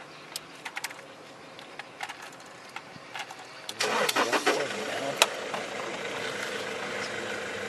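A vehicle engine starting about four seconds in, then running steadily, with a sharp click soon after it starts.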